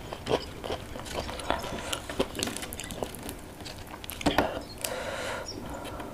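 A man eating with his hands: chewing and wet mouth smacks mixed with sharp clicks as his fingers pick apart fried fish and rice on a banana leaf. The loudest click comes a little after four seconds in.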